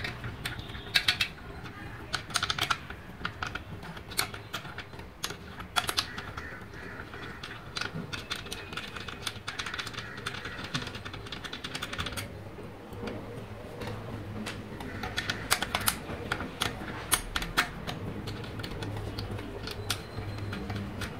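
Bolts being undone with a spanner on a copper water-heater tank: irregular metallic clicks and clinks that come in bunches, as the tool works and the loose bolts are handled.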